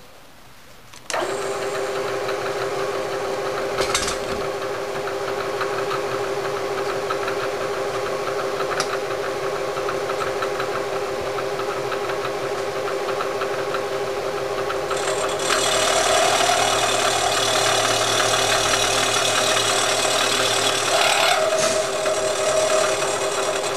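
Milling machine spindle starting about a second in and running steadily while its end mill cuts into a main bearing boss of a Porsche 911 engine case, tapering it for a boat-tail modification. About fifteen seconds in the cut turns louder and harsher, easing briefly near the end.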